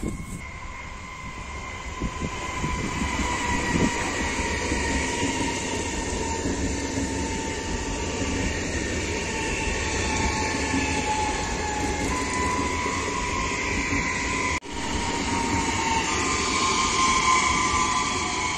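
EVS2 "Sapsan" high-speed electric train (Siemens Velaro Rus) passing at speed: a steady rushing of wheels on rail and air, building over the first few seconds, with a steady high whine over it. The sound cuts out for an instant about three-quarters of the way through, then resumes.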